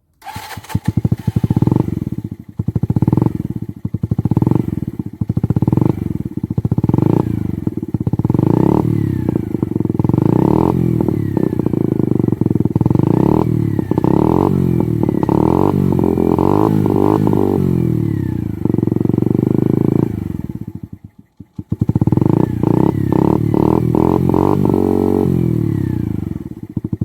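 Mash 50's small single-cylinder four-stroke engine revving through a Megaton exhaust with no dB killer. It gives short repeated throttle blips, then longer held revs. The sound cuts out briefly just after twenty seconds, then comes back as quick blips.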